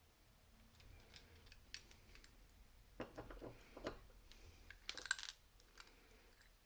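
Small steel parts of an Abloy 242 padlock clicking and clinking as the lock is taken apart: a scatter of light metallic taps, bunched about two, three to four, and five seconds in.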